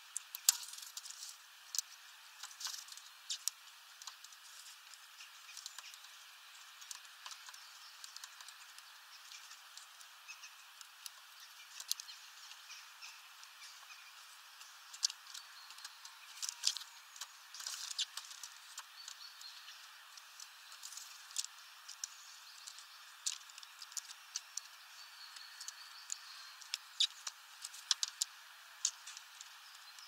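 Great tits pecking at sunflower seeds on a feeder tray: irregular sharp taps and clicks of beaks and feet, some in quick runs, over a faint steady hiss.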